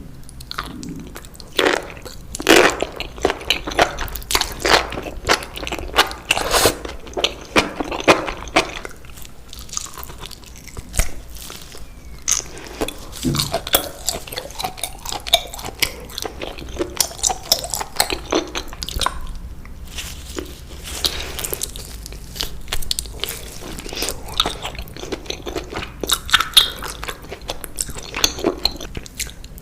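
Close-miked biting and chewing of crispy fried food, loud crunches coming one after another.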